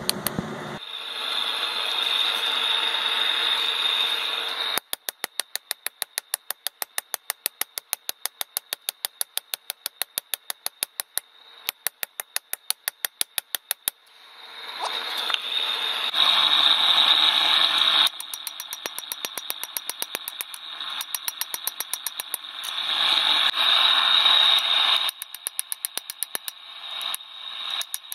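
Hammer striking hot spring steel on an anvil in rapid, evenly spaced blows, forging a spoon. In several stretches a steady hiss sounds alongside the blows.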